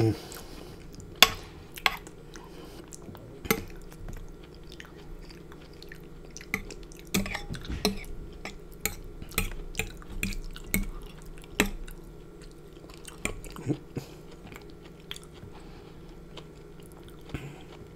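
Close-up chewing of seafood in thick Alfredo sauce, with wet mouth smacks and irregular sharp clicks, including a metal fork knocking on a glass baking dish. The clicks come thickest through the middle and thin out towards the end.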